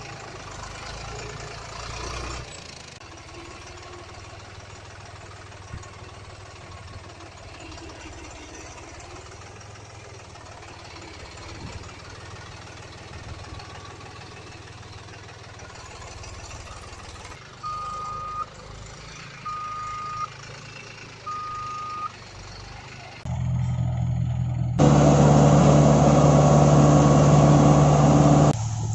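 Heavy machinery running steadily with a low engine hum. A reversing alarm beeps three times, about two seconds apart, around two thirds of the way through. Near the end a much louder steady, multi-pitched sound takes over for a few seconds.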